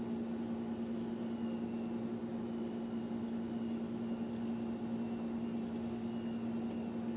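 Steady electrical hum of a running appliance motor, with an even fan-like hiss.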